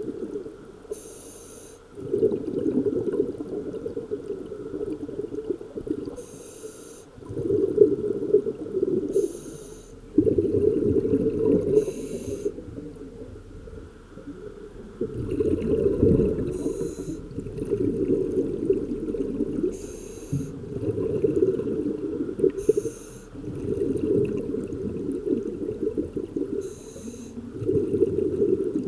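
Scuba diver breathing through an open-circuit regulator underwater: a short hissing inhale, then a longer low rumble of exhaled bubbles, repeating about eight times.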